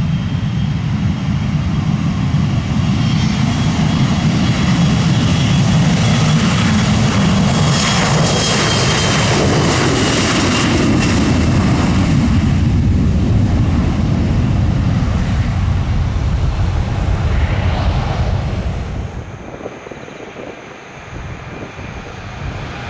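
Embraer 170 regional jet's twin GE CF34 turbofans running at takeoff power as the jet rolls and climbs past. A high whine falls in pitch midway as it goes by, then the sound dies away over the last few seconds.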